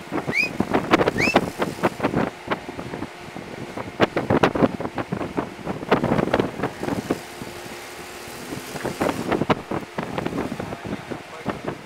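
A 4x4 SUV's engine running at low revs as it crawls over boulders, with tyres crunching and scraping on rock and repeated knocks and clunks. Two short rising squeaks about half a second and a second in.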